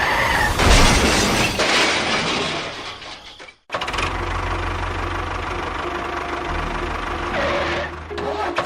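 Small engine running. It is loud and rough with a lot of hiss for the first few seconds, then, after a brief cut, settles into a steady idle.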